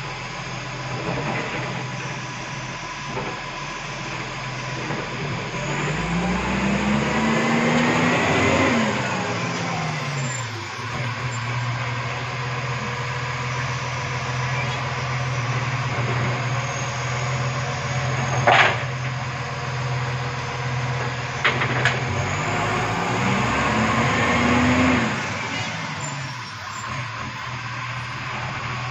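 Side-loader garbage truck at a kerbside pickup: its engine revs up and back down, then holds a steady hum while the lifting arm handles a wheelie bin, with a sharp bang about two-thirds through and a couple of smaller knocks soon after. The engine then revs up and down again near the end.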